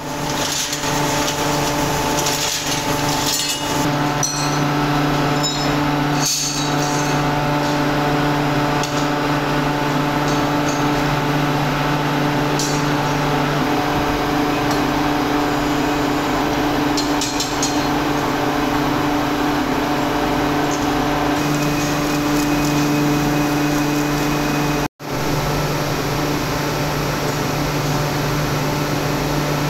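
Steady low hum of casting-workshop machinery, with scattered clinks and knocks of scrap metal being handled in the first few seconds. The sound drops out for a moment near the end.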